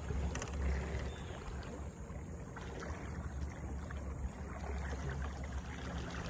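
Water rushing and splashing along the hull of a john boat under way, over a low steady rumble, with a light click near the start.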